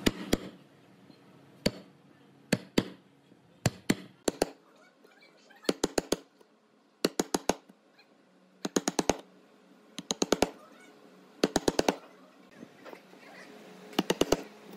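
Chisel being struck to chop a mortise into a pine board: sharp knocks in quick bursts of three to six blows, with short pauses between bursts.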